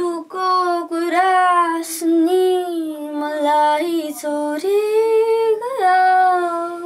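A young girl singing solo with no backing music, one melodic line broken into short phrases. Near the end she reaches a higher note and then holds it.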